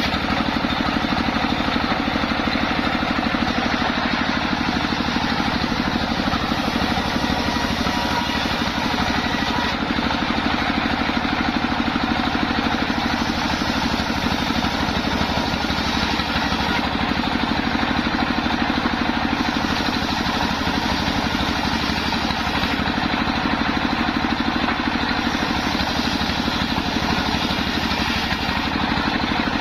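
Engine driving a homemade circular saw rig, running steadily with an even, pulsing note.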